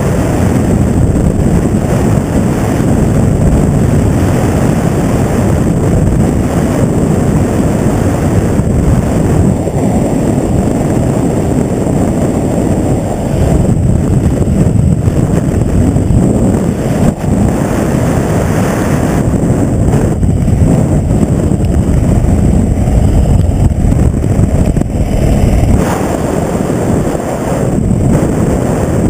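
Helicopter running, a loud steady rumble heavily buffeted by wind on the microphone.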